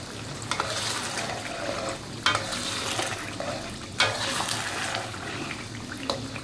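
Chilli sambal sizzling in hot oil in a pan while a spatula stirs it, with a few sharp knocks and scrapes of the spatula against the pan.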